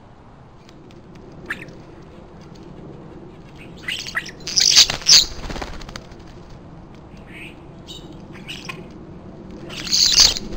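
European starlings at a suet feeder, giving harsh squawking calls with wing-flapping in two loud bursts, about four seconds in and again near the end. Faint short chirps of small birds come in between.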